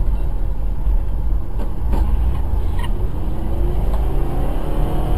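Car driving on a highway, heard through a dashcam inside the cabin: a steady low road and engine rumble, with a few faint clicks about two and three seconds in.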